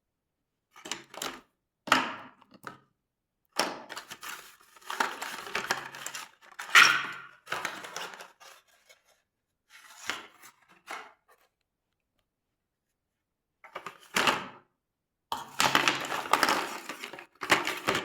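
Handling noise: clicks, clatter and crackling in about seven bursts of a second or two each, with silent gaps between.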